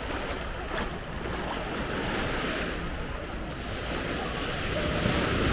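Sea surf washing onto the beach, swelling louder near the end, with wind rumbling on the microphone.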